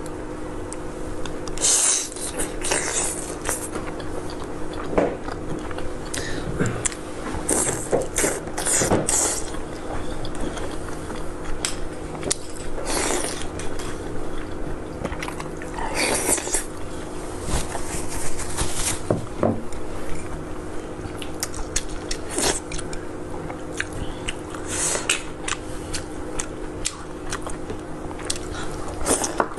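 A person biting and chewing food close to the microphone, with irregular bites and mouth sounds throughout. A faint steady hum runs underneath.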